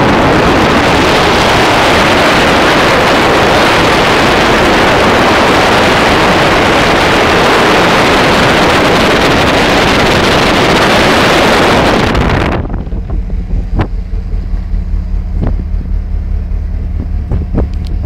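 Loud wind buffeting the microphone for about twelve seconds, then cutting off suddenly. A steady low hum of the ship's engine remains, with a few faint ticks.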